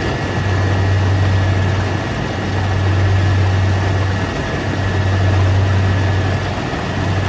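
Rice combine harvester running steadily: a deep, loud engine drone with a faint steady high whine above it, the level swelling and easing slightly every couple of seconds.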